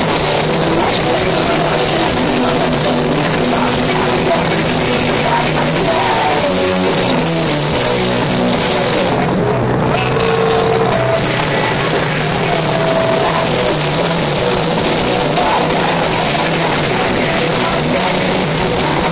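A rock band playing live: distorted electric guitar and drums in a dense, steady wall of sound.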